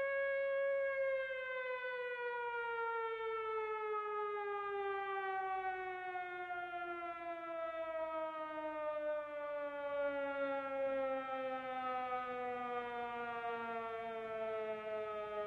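Air raid siren winding down: its wailing tone holds steady for about a second, then falls slowly and smoothly in pitch.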